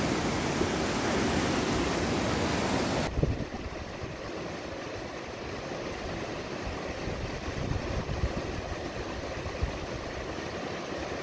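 Rushing water of a small mountain river tumbling over boulders in rapids. It is loud and close for about three seconds, then drops suddenly to a softer, steady rush.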